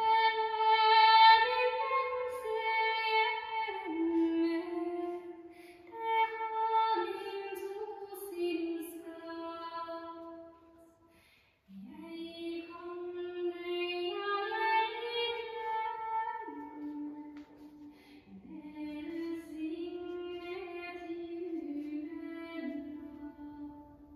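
Recorded music played through a pair of DeVry tube amplifiers (Signal Corps AF Amplifier AM-424A) into large horn loudspeakers: a slow melody of held notes stepping up and down, with a brief pause about halfway through.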